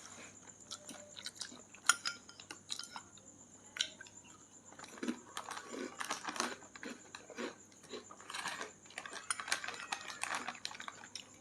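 Faint, scattered clicks and clinks of spoons on plates as people eat, mixed with crunchy chewing.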